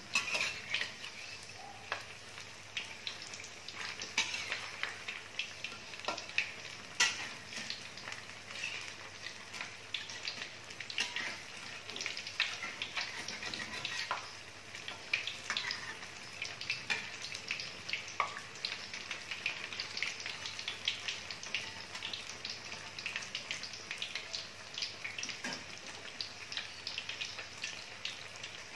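Vegetable fritters frying in hot oil in an aluminium wok: a steady sizzle full of small crackles and pops. A few sharper clicks and scrapes come from a metal spatula against the wok as the fritters are turned.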